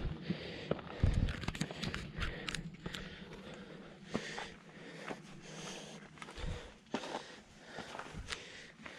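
Hiking boots stepping and scuffing on wet rock during a climb: irregular clicks and scrapes, with heavy low thumps about a second in and again just past six seconds.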